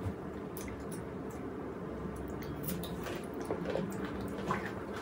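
Wet chewing and mouth sounds from eating chocolate, with scattered small clicks and smacks over a low steady background.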